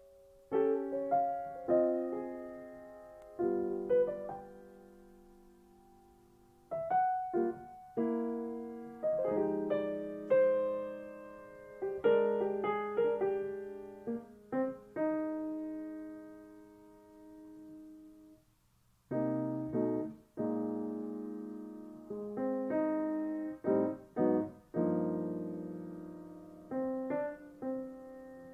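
Solo piano music in slow, sparse phrases: single notes and chords struck and left to ring and fade, with two brief lulls where the sound dies away, about a fifth of the way in and again past the middle.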